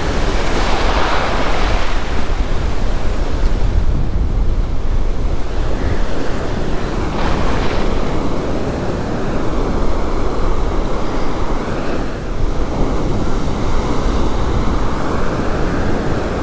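Ocean surf washing up a sand beach, with wind buffeting the microphone. The wash swells louder about a second in and again about seven seconds in.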